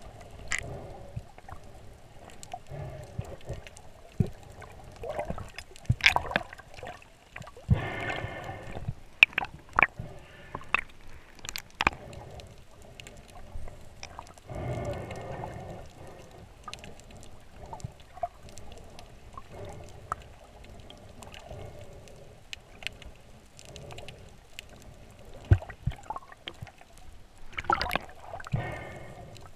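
Underwater sound picked up by a submerged action camera: muffled water movement with many scattered sharp clicks and crackles. Three longer rushing sounds come about 8, 15 and 28 seconds in.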